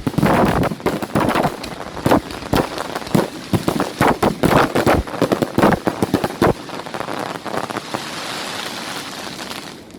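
Fireworks going off in quick succession, a dense run of bangs and crackles for about six and a half seconds, then a steady crackling hiss that fades near the end.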